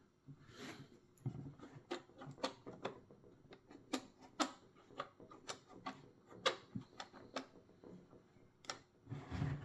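Irregular small clicks and taps from a toy puzzle box being handled and probed, about twenty over the stretch, roughly two a second.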